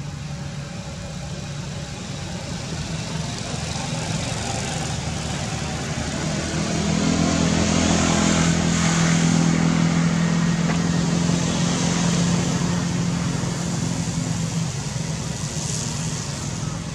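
A motor vehicle's engine running with a steady low hum, growing louder for several seconds and then fading away.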